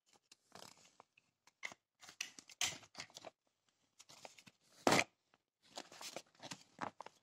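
Scissors cutting through the clear plastic bag of a toy set, with the plastic crinkling: a run of short, irregular snips and rustles, the loudest a sharp snip about five seconds in.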